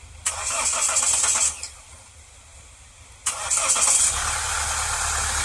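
Mahindra XUV500 engine being started: a first crank of about a second stops without a run, then a second crank about three seconds in catches and settles into a steady idle. It is being run to hear whether the noise from its EGR vacuum solenoid is gone with a swapped-in solenoid.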